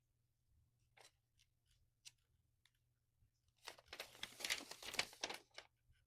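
Paper sheets being handled and leafed through: a few faint crinkles, then a couple of seconds of denser rustling past the middle.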